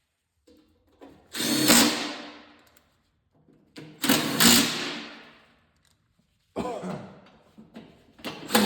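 Power drill/driver running bolts into a snowblower's bottom plate in four short bursts, each starting sharply and dying away over about a second.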